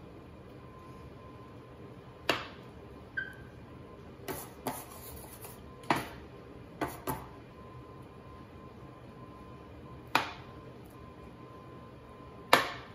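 Metal bench scraper chopping down through scone dough and knocking on the countertop: about nine sharp knocks at irregular intervals, the one near the end the loudest.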